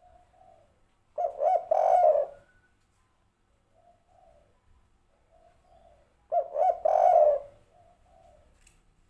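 Spotted dove (tekukur) singing its three-part 'kuk 3' coo: two loud phrases about five seconds apart, each a couple of short notes running into a longer one. Fainter coos come in between.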